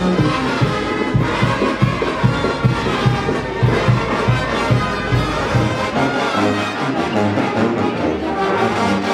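Live brass band playing dance music, with a steady low bass beat that thins out about halfway through.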